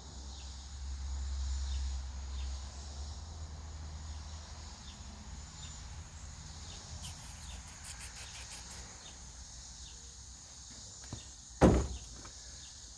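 Evening crickets chirping steadily, with a low rumble in the first few seconds that fades away. A single loud thump comes near the end.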